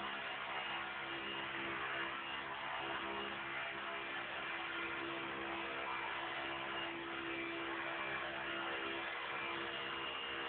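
Esky Honey Bee King 2 belt-driven collective-pitch electric RC helicopter in flight: a steady hum and whir of the motor, belt-driven tail and rotors at an even pitch.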